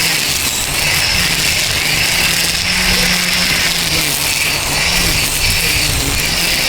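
DeWalt 20V Max XR brushless cordless string trimmer running steadily, a high motor-and-line whine whose pitch wavers a little.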